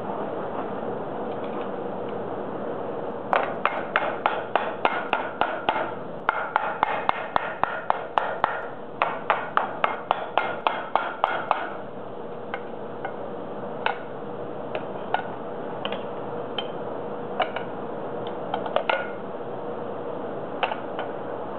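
Hand hammer striking hot steel bar on a steel bending-jig plate: three runs of rapid ringing blows, about three a second, over some eight seconds. These are followed by a few scattered, lighter metal-on-metal clinks.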